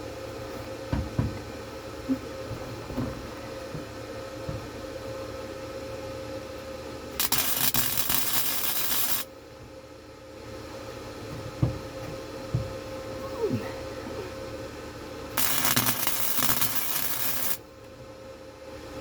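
Two bursts of wire-feed welding, each about two seconds and cutting off sharply, over a steady hum with a few light knocks and taps on metal between them.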